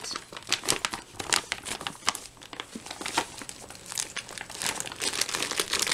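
Plastic ration packaging crinkling and rustling as it is handled, a run of irregular short crackles, a little busier near the end.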